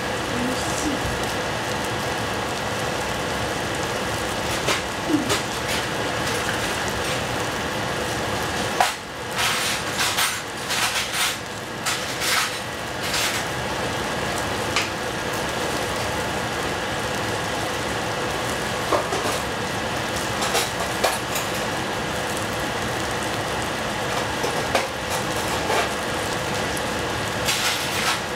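Diced tomatoes sizzling in a stainless steel saucepan over a gas flame: a steady crackling hiss. A cluster of sharp clicks and knocks comes about nine to thirteen seconds in.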